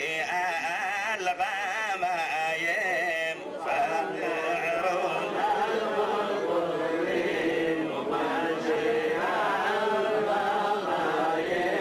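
Several voices chanting Hebrew liturgy together in the Adeni Jewish tradition, a continuous, wavering, ornamented melody.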